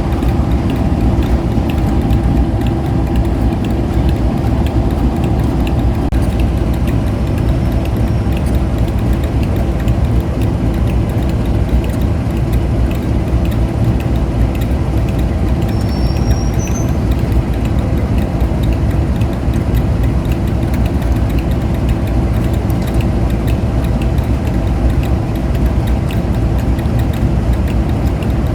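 Diesel locomotive engine idling steadily with an even drone that does not change.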